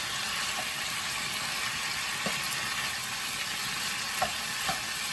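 Chicken strips sizzling in a frying pan as a wooden spatula stirs them, a steady hiss with a few light taps of the spatula against the pan.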